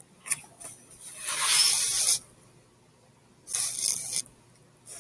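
Paper rustling as a book's pages are handled and pressed flat, in two hissing bursts: one of about a second near the middle and a shorter one near the end, with a few light clicks at the start.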